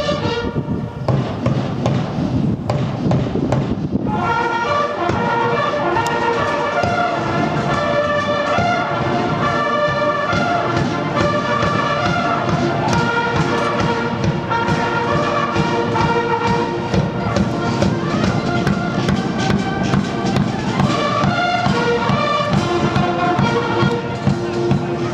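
Massed military band of bugles and brass with drums: a held brass chord ends about a second in, the drums beat alone for about three seconds, then the bugles and brass strike up a march tune over the drum beat from about four seconds in.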